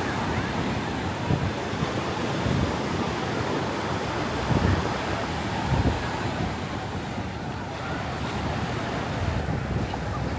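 Ocean surf breaking and washing up on a beach, a steady rush of waves, with wind buffeting the microphone in low gusts.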